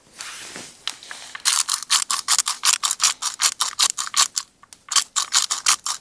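Hand spice grinder being twisted, a fast run of dry ratcheting clicks at about six a second, starting about a second and a half in.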